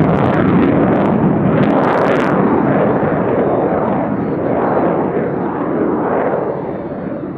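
F-35A Lightning II fighter's single F135 afterburning turbofan roaring loudly overhead during a demo maneuver. The roar wavers in pitch and slowly fades toward the end, with a few sharp crackles in the first couple of seconds.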